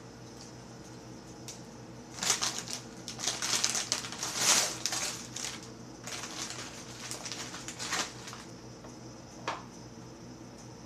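Plastic Oreo cookie wrapper crinkling and rustling in bursts as it is opened and cookies are pulled out, with a single click near the end as a cookie is set on a plastic plate. A steady low hum runs underneath.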